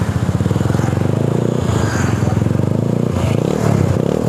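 Yamaha Mio Sporty scooter's single-cylinder four-stroke engine running through a new stainless SKR racing exhaust. It idles with a fast, even beat, then the throttle is blipped from about three seconds in, with the pitch rising and falling. The exhaust note is being tested and is judged rather mellow ('adem').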